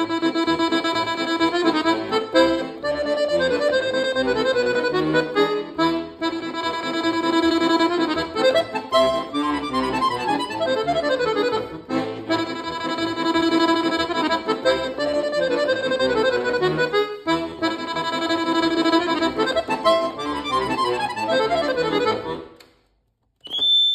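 Giustozzi piano accordion playing fast, with rapid note changes and two quick falling runs, played as a solo. The playing stops about a second before the end, followed by a short high ping.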